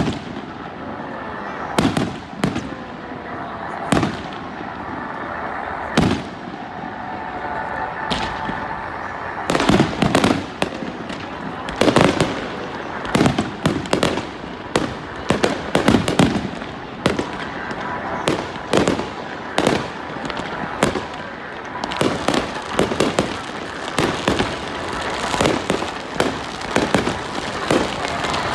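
Aerial fireworks bursting. Single bangs come about two seconds apart at first, then a fast, dense run of bangs from about ten seconds in, over the chatter of a crowd.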